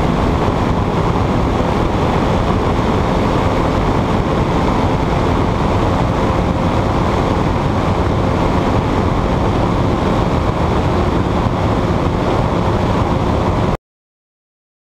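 Powered hang glider trike in flight: the steady drone of its engine and propeller under heavy wind rush on the microphone, cutting off abruptly near the end.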